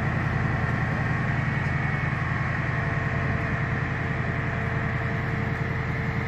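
Large crawler crane's diesel engine running steadily during a heavy lift, a low rumble with a thin steady whine above it.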